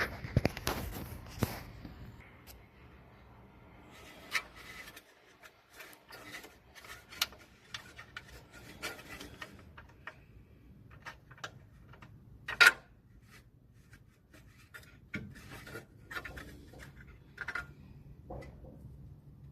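Hand tools and metal parts being handled: scattered clicks, short scraping and rubbing, and one sharp knock a little past halfway, the loudest sound.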